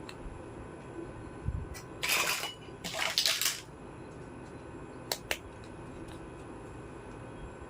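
Small toy kitchen pieces and their packaging being handled: a soft knock, two short rustling scrapes, then two light clicks a fraction of a second apart.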